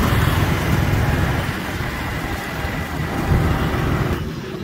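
Small motorcycle engine running close by, a loud uneven low rumble with a hiss over it; the hiss drops away suddenly about four seconds in while the rumble goes on.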